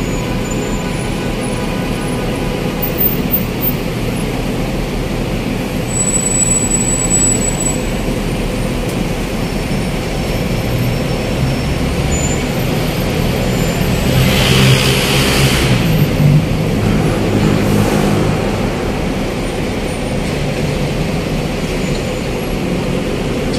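Road traffic at a bus terminal: city buses and cars running and creeping along in jammed traffic, a steady engine rumble. About halfway through, a nearby engine grows louder and a short hiss sounds for about two seconds.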